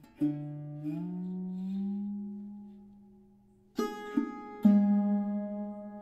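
Sarod played slowly. Plucked notes slide upward in pitch and ring out, fading almost away. Near the end, three quick fresh plucks follow, the last of them the loudest.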